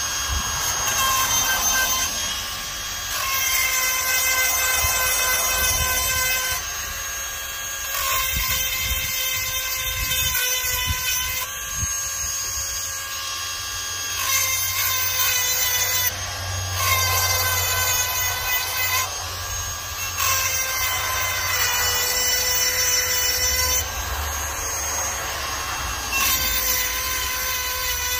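Cordless rotary chainsaw-chain sharpener whining steadily. It grows louder and harsher about six times, in passes of two to four seconds as the grinding stone works each cutter tooth of the chain.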